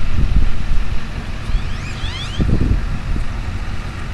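Wind buffeting the microphone over a steady low rumble, with a few short rising chirps about two seconds in.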